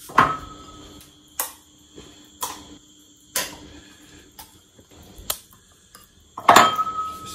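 Spoon and ceramic bowls clinking and knocking as fufu is scooped into the bowls: a string of sharp clinks about once a second, a couple ringing briefly, with the loudest knocks near the end.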